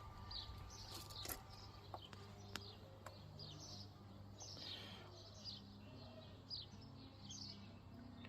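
Faint birdsong: a run of short, high chirps, each falling in pitch, with a few soft clicks.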